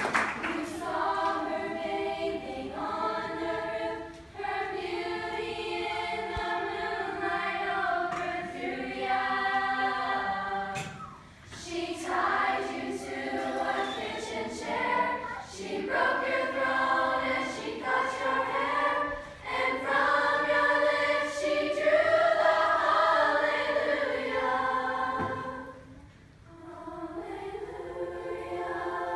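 Youth choir of mostly girls' voices singing in several parts, in phrases with short breaks between lines, the longest break near the end.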